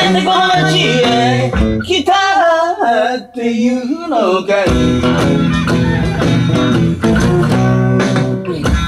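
A man singing a folk blues in Japanese to his own strummed acoustic guitar; about halfway through the voice drops out and the guitar strumming carries on alone.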